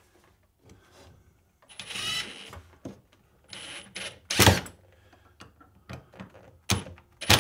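Cordless drill driving 2-inch screws into a wooden guide block, its motor running in several short bursts, one rising in pitch as it spins up, with a few sharp knocks in between.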